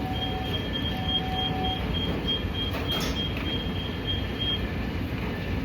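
Steady low rumble of restaurant background noise, with a high electronic beep repeating about three times a second that stops shortly before the end.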